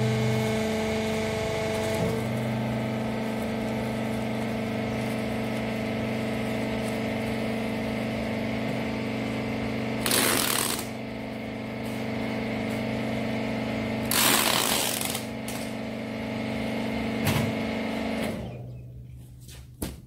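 Hydraulic power unit of a rag and duster-cloth baler running with a steady hum. Packing tape is pulled off a hand dispenser in two short ripping bursts, about ten and fourteen seconds in. The hum stops near the end as the machine shuts off.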